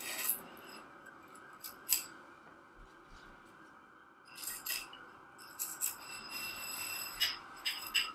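Small metal clicks and clinks as metal-tipped cord ends are unhooked from and hooked onto the ends of metal tubes in a tensegrity model, with light rubbing. The clicks are sparse at first and come thicker in the second half.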